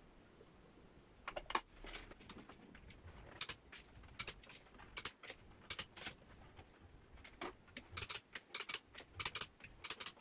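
Torque wrench clicking as car wheel nuts are torqued up: irregular runs of sharp metallic clicks.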